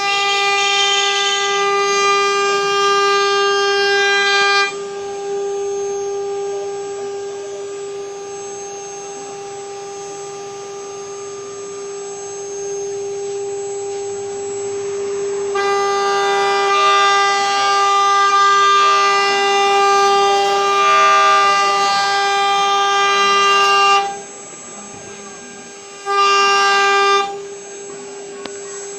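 CNC router spindle running with a steady high-pitched whine. It swells louder and harsher for the first few seconds, again for a long stretch past the middle, and briefly near the end.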